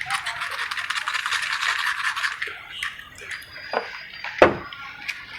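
Paper-cutter blade scraping old gasket residue off the metal face of a donkey water pump, in fast scraping strokes for about three seconds, then two sharp knocks.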